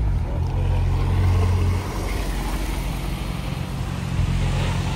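A car engine and exhaust running at steady revs, a deep even drone that is loudest for the first couple of seconds and then eases off slightly.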